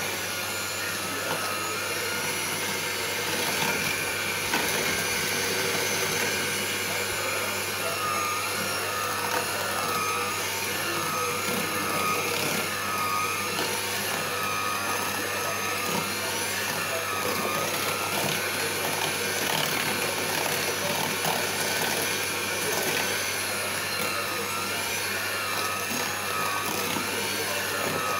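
Electric hand mixer running steadily, its beaters churning a thick cake batter in a plastic tub. The motor's whine wavers up and down in pitch through the middle stretch.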